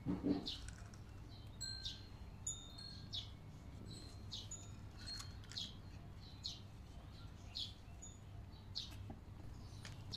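Small birds chirping faintly and repeatedly, short high chirps every half second or so mixed with brief tinkling tones, over a low steady background hum. A soft thump comes at the very start.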